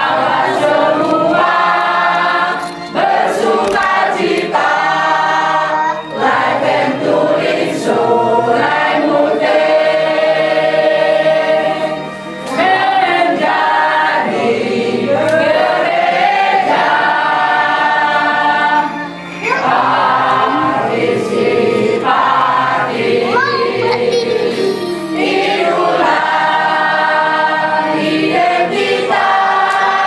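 Congregation of men, women and children singing a hymn together, in long sustained phrases with brief pauses for breath between them.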